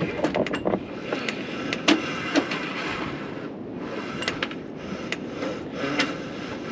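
Rope and rigging hardware at the foot of a sailboat's mast as a line is hauled in: irregular clicks and knocks over a rasping scrape.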